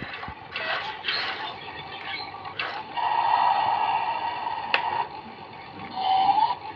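Toy excavator's small electric motor whirring, louder for a couple of seconds in the middle, with several sharp clicks from its plastic mechanism.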